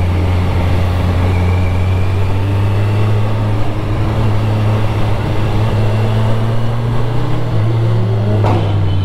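Kawasaki Ninja 1000's inline-four engine running at a steady speed while riding, with road and wind noise. The engine note rises slightly about seven and a half seconds in, and a single sharp click sounds near the end.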